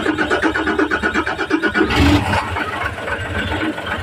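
Mitsubishi Fuso Super Great truck's 6M70 inline-six diesel engine running with an even rhythmic beat, the sound shifting and then steadying about two seconds in. It has just been fitted with a replacement fuel pressure regulator to cure a low-power fault.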